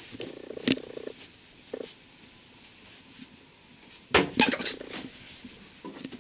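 A loud cluster of sharp knocks about four seconds in, as the handheld camera bumps against a wooden wall cupboard in a small ship's cabin. A single lighter knock comes earlier.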